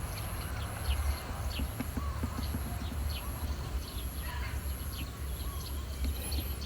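Small birds giving short, high chirps now and then, over a steady low rumble, with faint ticking and a very high whine pulsing on and off.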